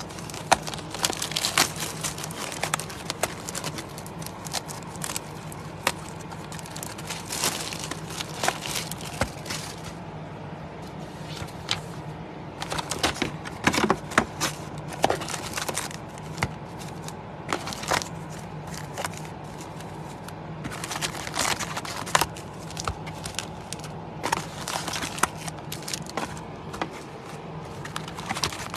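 Plastic shrink wrap crinkling and tearing as a sealed Topps Chrome baseball hobby box is unwrapped, then cardboard and foil card packs rustling as the box is opened and the packs are handled, in a dense run of irregular crackles. A faint steady low hum sits underneath.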